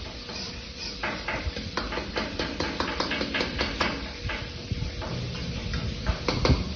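Metal ladle stirring and knocking against a wok, a quick series of taps about three a second, then a few more near the end.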